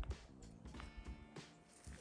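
Background music with held notes and percussive hits.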